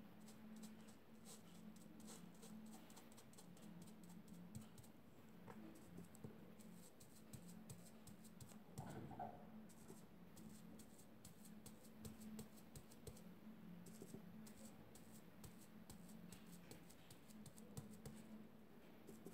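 Faint, irregular light taps and scratches of paint being dabbed through a paper stencil onto fabric, over a low steady hum.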